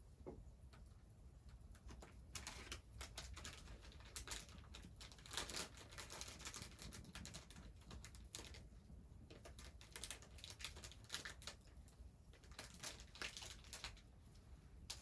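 Faint, irregular rustling and crackling clicks, close by.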